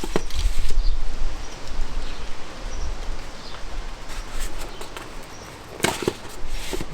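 Hands handling small metal engine parts at the bench: scattered clicks and rustling, with a couple of sharp knocks about six seconds in.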